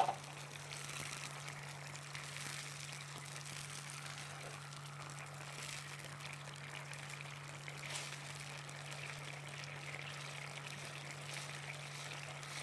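Faint stirring of a thin tomato sauce in a frying pan with a spatula, the liquid sloshing and simmering, over a steady low electrical hum.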